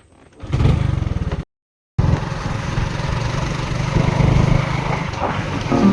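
A small engine running close up, a dense low pulsing sound, broken by a sudden half-second of total silence about a second and a half in. Music begins right at the end.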